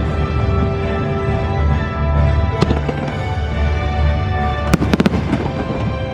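Fireworks going off over loud show music: one sharp bang about two and a half seconds in and a quick cluster of bangs near five seconds, with a deep rumble under the music.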